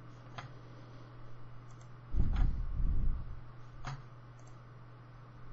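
Computer mouse clicking, three single clicks spread over a few seconds. A low muffled rumble of about a second comes midway and is the loudest sound, over a faint steady electrical hum.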